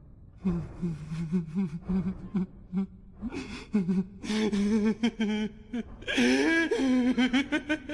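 A person's voice making wordless laughing or whimpering sounds: short pitched pulses at first, then longer, louder, wavering cries from about six seconds in.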